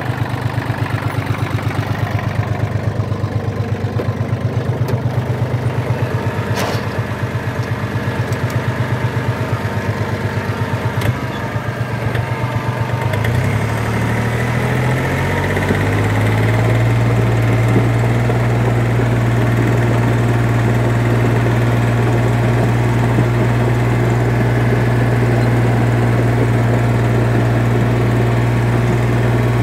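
Yanmar US300D compact tractor's diesel engine idling with a steady pulsing beat, then revving up about 13 seconds in and running steadily at higher speed as the tractor gets under way.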